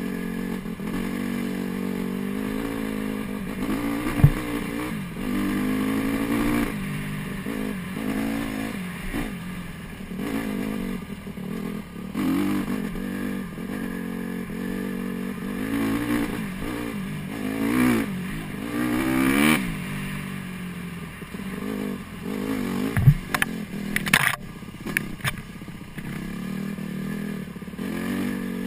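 Honda CRF150 dirt bike's four-stroke single-cylinder engine, ridden along a dirt trail, its pitch rising and falling with the throttle in repeated short revs. Two sharp knocks stand out, one about four seconds in and a louder cluster about three-quarters of the way through.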